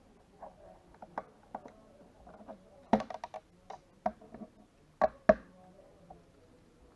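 Sharp plastic clicks and taps of a computer mouse being handled, with a quick flurry of clicks about three seconds in and two loud snaps about five seconds in.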